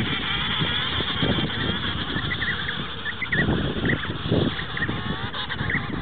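An emperor penguin colony calling. Many short, high whistling calls from the chicks rise and fall one after another, over a busier chorus near the start. A low rumbling noise comes and goes underneath.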